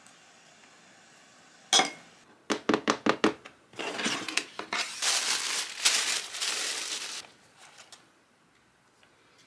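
Kitchen handling sounds: a sharp knock about two seconds in, then a quick run of clinks and taps, then about three seconds of crinkling.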